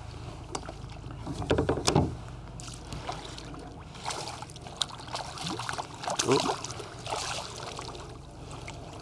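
Hooked snook thrashing and splashing at the water's surface beside a kayak, then being scooped up in a landing net. Two short louder sounds stand out, one about two seconds in and one near six seconds.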